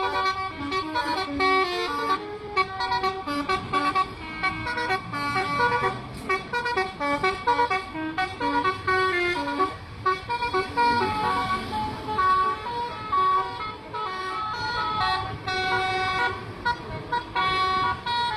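Telolet bus air horns, multi-note horns, playing quick tunes of short stepped notes, two buses answering each other in turn, over engine rumble.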